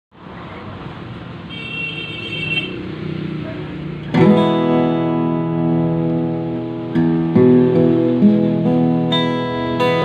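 Yamaha FG-251B steel-string acoustic guitar being played. It is quiet at first, then about four seconds in a chord rings out loudly, followed by further chords and single notes.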